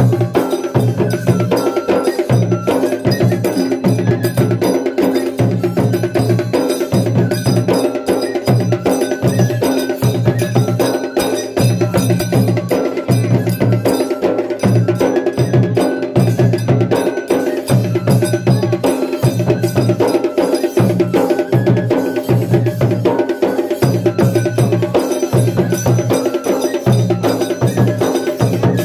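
Loud, continuous Tulu bhuta kola ritual music. Fast metallic ringing strikes run over a low beat that pulses in a steady rhythm, with held tones underneath.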